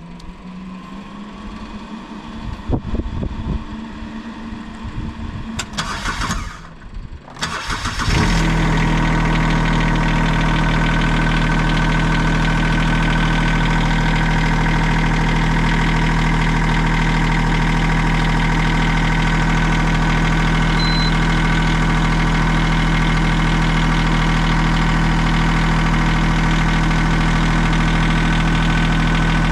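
Mini excavator's engine starting: about 8 seconds of uneven mechanical noise, then the engine catches and settles into a loud, steady idle.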